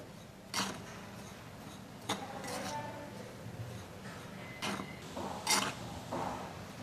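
Metal spoon stirring a dry flour mix in a glass bowl, scraping and clinking against the glass now and then, five or so times.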